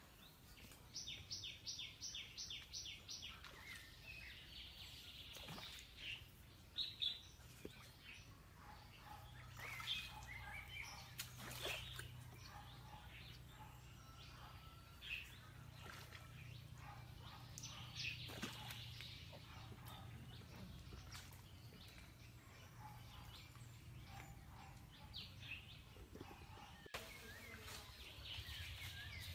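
Birds chirping, opening about a second in with a quick run of high chirps at about four a second, then scattered calls. A faint low hum runs underneath.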